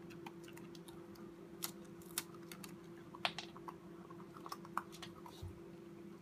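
Corgi puppy gnawing on a hard dog biscuit held in a hand: irregular crunchy clicks of teeth scraping and biting the biscuit, the loudest about three seconds in. A faint steady hum runs underneath.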